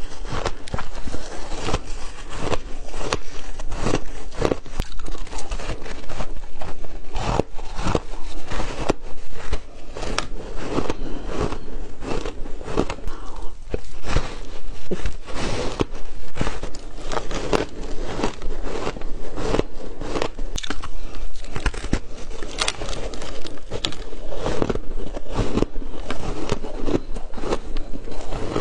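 Biting and chewing of frozen coloured shaved ice: a continuous, irregular run of crunches and crackles as pieces are bitten off and chewed.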